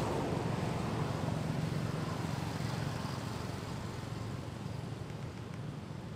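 A motor vehicle's engine drone, fading steadily as it moves away.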